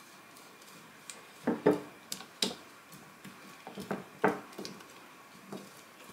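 Silicone spatula stirring and scraping a thick powdered-sugar lemon glaze around a glass mixing bowl, with irregular light knocks and scrapes against the glass, a few of them close together in the middle.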